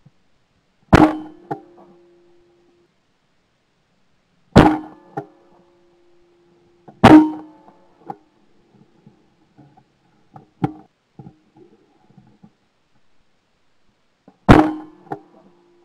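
Four close, loud shotgun shots firing steel-shot loads at clay targets, heard from a camera mounted on the gun, each followed by a short ringing tone and smaller clicks, with a weaker sharp crack in between.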